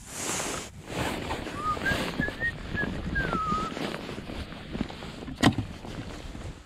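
Jacket and hand rustling while handling a freshly caught yellow perch, then one sharp knock about five and a half seconds in as the perch drops into a plastic bucket.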